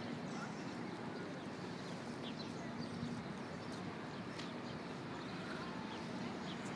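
Steady outdoor city background noise: a constant low hum with faint, scattered high ticks over it.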